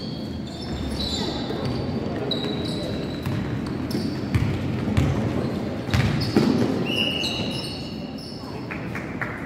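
Basketball play on a gym floor: sneakers squeak in short high chirps and the ball bounces a few times, the knocks loudest around the middle, all echoing in the large hall.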